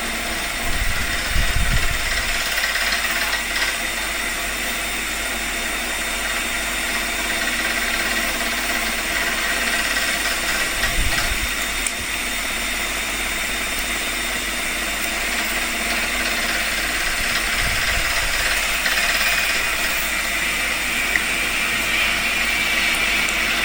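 CNC milling machine running a job, its spindle cutting the plaque with coolant water flowing. The result is a steady, even hiss with faint steady tones.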